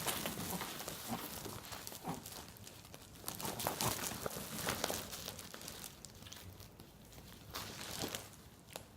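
A sack rustling and crinkling in irregular bursts as a puppy inside it moves about, louder in the first half and quieter after about six seconds.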